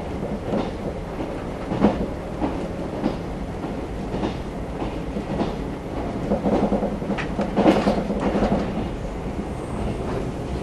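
Running noise of a JR 381 series electric train heard from inside the passenger car: a steady rumble with wheels clicking over rail joints, a little louder about six to eight seconds in.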